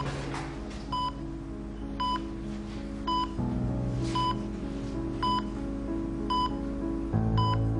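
Bedside patient monitor beeping with the heartbeat: a short, clear beep about once a second, steady and even. Underneath runs slow background music of held chords, which change twice.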